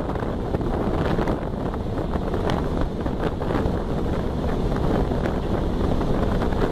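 A 1969 Volkswagen Beetle under way: steady engine and road noise, with wind buffeting the microphone.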